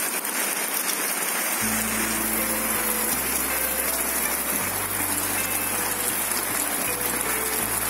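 Heavy rain falling steadily with an even hiss. About one and a half seconds in, background music with long low notes and a slow melody comes in over it.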